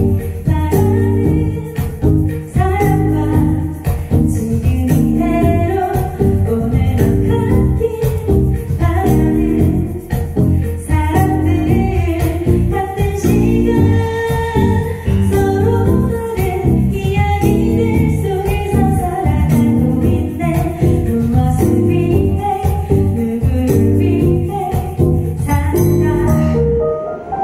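Live pop band performance: a woman singing over drums and electric bass, with a jingling hand percussion part.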